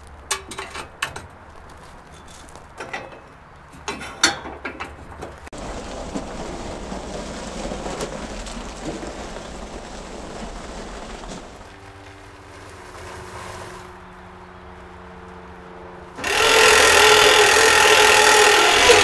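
Footsteps and knocks on gravel, then a steady hiss. About three seconds before the end, a loud steady rushing hiss starts suddenly: a gas log lighter burning in the smoker's firebox.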